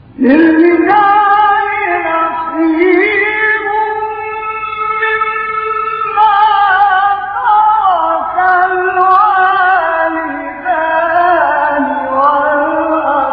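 Male Quran reciter chanting in the melodic, ornamented tajwid style, entering abruptly after a pause and drawing out long phrases with wavering, gliding held notes.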